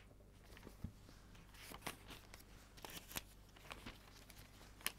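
Faint rustling and a few small clicks of paper pages being turned while looking up a Bible passage.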